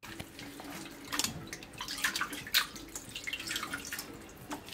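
Water splashing and dripping from a kitchen tap as raw beef tripe is rinsed and handled in a pot, with a few louder splashes.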